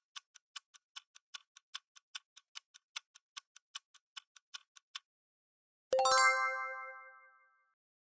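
Stopwatch ticking sound effect, about five ticks a second, which stops about five seconds in. About a second later a single bell-like ding rings out and fades over about a second and a half, marking the end of the countdown.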